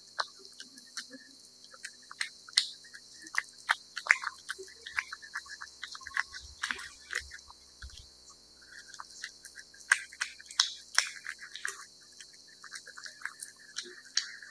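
A cat eating wet cat food: irregular wet smacks and chewing clicks come several times a second, with a few sharper ones standing out.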